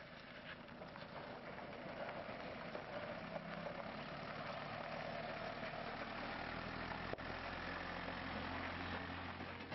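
Nissan light truck's engine running at low speed as it rolls down a gravel driveway, growing louder as it approaches and passes close by, with tyres crunching on the gravel.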